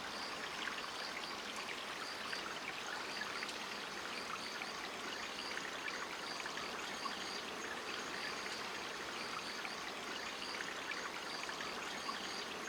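Spring water running and splashing steadily, with many small droplet splashes. A faint high chirp repeats about twice a second in the background.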